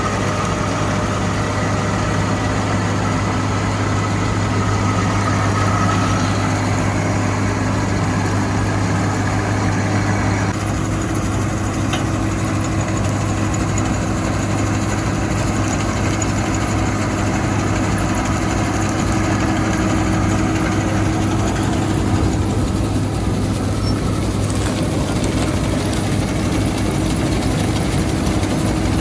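A large engine running steadily at an even speed, with a slight change in its tone about a third of the way through.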